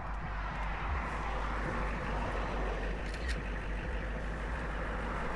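Steady vehicle noise: road traffic passing and engine rumble.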